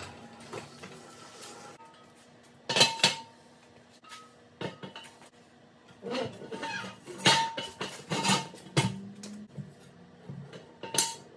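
Heavy steel Dana 30 front axle clanking and knocking against steel jack stands and a floor jack as it is set down and shifted into place, the metal ringing briefly after each hit. A loud pair of clanks comes about three seconds in, a run of them between about six and nine seconds, and one more near the end.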